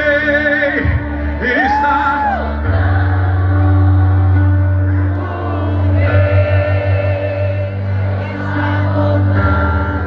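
Live gospel band playing through a stage sound system, with amplified singing over a deep, sustained bass.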